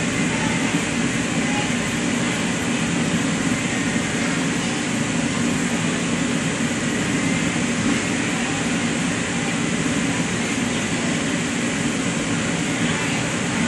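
Steady, loud hum and rush of a large ventilation or heating unit running, with no distinct knocks or footfalls standing out.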